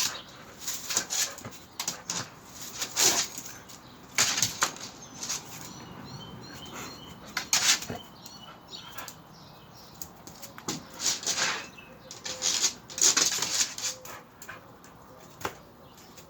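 A dog moving about, making irregular short bursts of scuffling noise every second or two, with a few faint high chirps in the middle.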